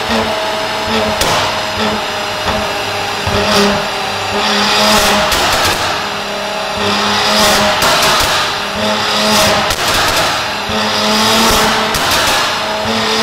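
Mercedes-AMG C43's twin-turbo 3.0-litre V6, breathing through a decat Armytrix exhaust, run hard on a dyno's rollers: a loud engine note that rises and falls several times, broken by sharp exhaust pops and bangs.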